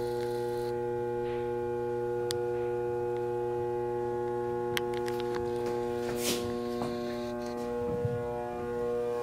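Steady electrical hum with a stack of even overtones, unchanging throughout, with a few faint clicks now and then.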